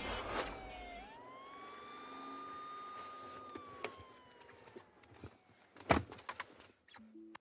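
Police siren wailing, one tone falling, rising and then slowly falling away as it fades. Scattered clicks follow, then a single loud thump of a car door shutting about six seconds in.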